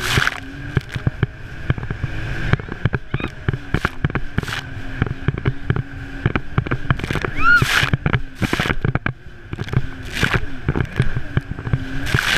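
Sea-Doo jet ski running across the lake, muffled through a waterproof camera case: a steady engine drone with water slapping and thumping irregularly against the hull.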